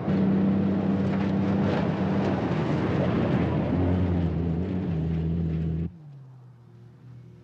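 Pickup truck's engine running hard at speed, with tyre and road noise over a dirt road; its note shifts lower a little before four seconds in. Near six seconds the sound drops suddenly to a faint, steady distant engine hum.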